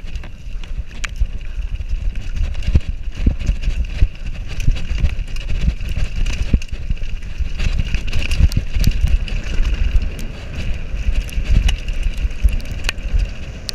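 Downhill mountain bike rattling and clattering over a rough dirt trail at speed, with a constant low rumble from wind and trail buffeting and many small knocks as the bike hits bumps.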